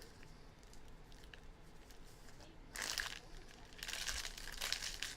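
Plastic trading-card pack wrappers being torn open and crinkled, in two bursts: a short one about three seconds in and a longer one about a second later.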